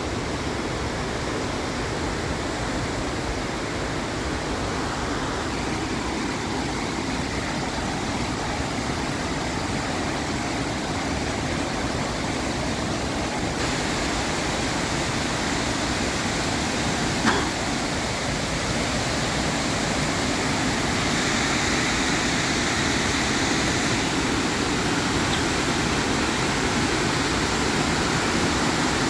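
Steady rush of the Štrbački buk waterfall on the Una river, an even roar of falling water that grows a little louder over the second half. A single short click a little past halfway.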